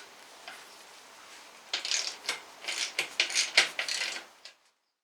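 Metal hand tools clicking and clinking in a quick, irregular run of sharp clicks. The sound cuts off abruptly near the end.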